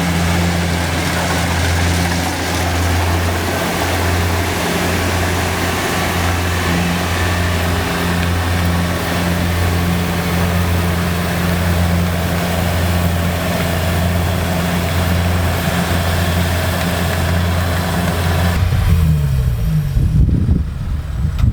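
Kubota DC70 combine harvester running at a steady speed: a diesel engine hum with a broad wash of machine noise over it. About three seconds before the end the steady noise cuts off abruptly, leaving an uneven low rumble.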